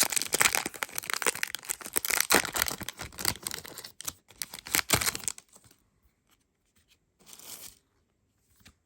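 Topps trading card pack wrapper being torn open and crinkled in the hands for about five seconds. It then goes quiet apart from one brief rustle as the cards are handled.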